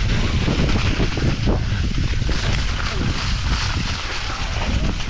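Mountain bike descending a rough trail: wind buffets the camera microphone while the bike rattles and the tyres rumble and crackle over uneven ground.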